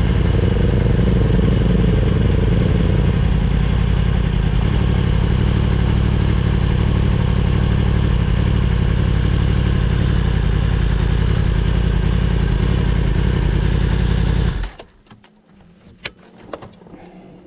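Onboard motorcycle engine running at speed under heavy wind rumble on the microphone. About 14.5 seconds in, the sound cuts off suddenly, leaving a quiet stretch with a few sharp clicks.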